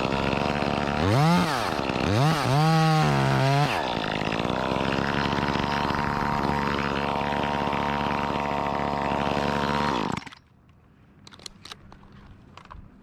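Chainsaw revving up and back down twice, then running at a steady high speed for about six seconds before it stops suddenly.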